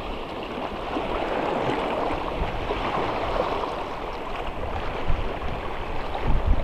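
Shallow sea water washing and lapping over a rocky reef flat, a steady rushing hiss, with wind gusting on the microphone.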